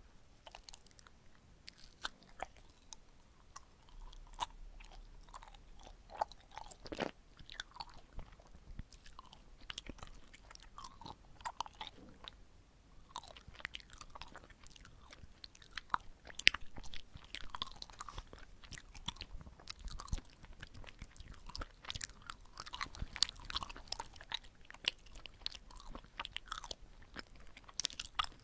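Close-miked chewing of sticky red-bean glutinous rice cake (chapssal-tteok): a steady run of soft, wet, chewy mouth clicks and smacks, thinning briefly about halfway and growing denser after.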